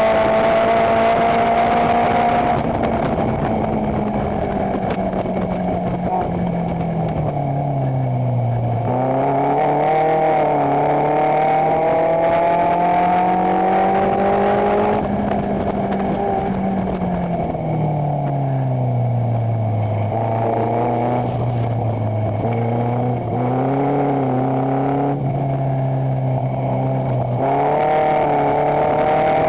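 Onboard engine of a Chevron racing car, heard from its open cockpit with wind noise. The engine note falls for several seconds at a time as the car slows for corners, then climbs again under acceleration, several times over.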